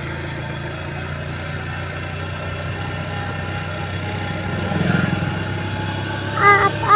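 A motor vehicle's engine running steadily, swelling slightly about five seconds in.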